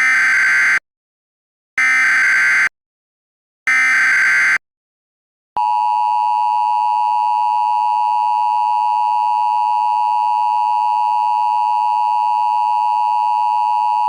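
Emergency Alert System tones: three short data bursts of the SAME header, each under a second and spaced about two seconds apart. About five and a half seconds in, the steady two-tone EAS attention signal begins and holds.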